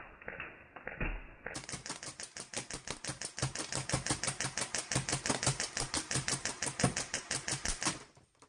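Airsoft rifle firing a long full-auto burst, an even rapid rattle of about eight shots a second that starts about a second and a half in and cuts off suddenly near the end. A few scattered clicks come before the burst.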